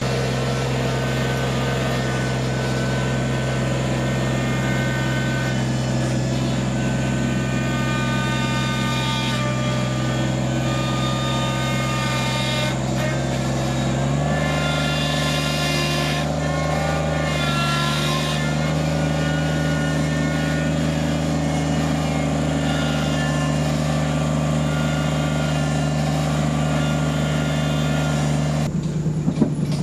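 Compact tractor engine running steadily while the tractor is driven slowly up onto a trailer; its hydraulics have failed, leaving it with no power steering. The engine note steps up in pitch about halfway through, as it climbs onto the trailer.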